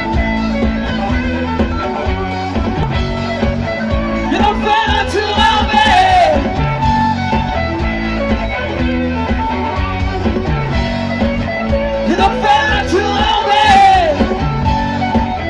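Live rock band playing a song: electric guitars, bass guitar and drum kit, with a male lead vocal.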